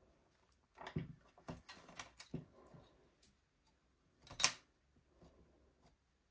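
Quiet handling sounds of clay-crafting work: a few soft clicks and knocks, then one brief, louder rustling noise about four and a half seconds in.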